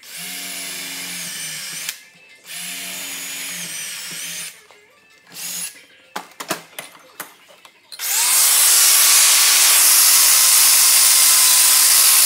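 Electric drill boring holes in a scrap metal bracket: two short runs of the motor with a steady whine, a few knocks, then a longer, much louder run from about two-thirds of the way in.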